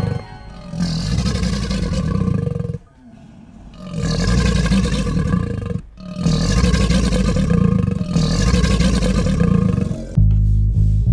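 Monster-style roar sound effect for an animated crocodile with its jaws open: three long roars with short breaks between them. Near the end, music with a bass line starts.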